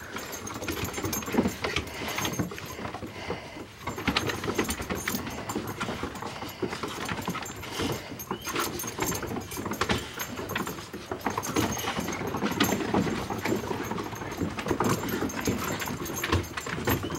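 Boxer puppies and an adult boxer playing: a continuous jumble of small puppy whines and dog noises, mixed with irregular clicks of paws and claws scrabbling on wooden deck boards.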